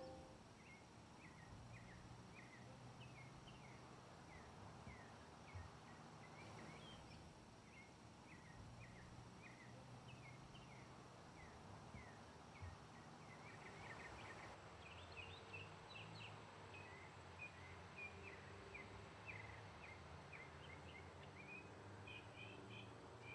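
Faint birds chirping, many short quick chirps scattered throughout, over quiet outdoor ambience. At the very start, the last of a bell-like ring dies away.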